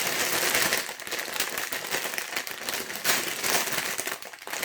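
Plastic LEGO parts bags crinkling steadily as they are handled.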